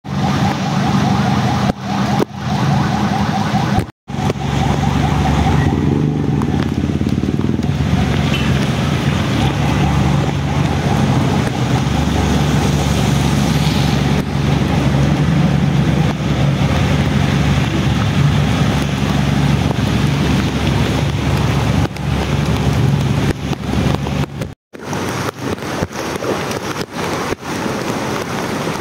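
Vehicle engines idling steadily in stopped traffic under heavy rain, the rain's hiss spread over the low engine hum.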